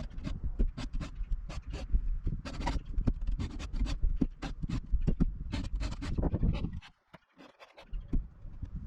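Steel chainsaw file drawn over the cutting teeth of a Stihl 036 chain in quick, short scraping strokes, about two or three a second; the strokes stop for about a second near the end.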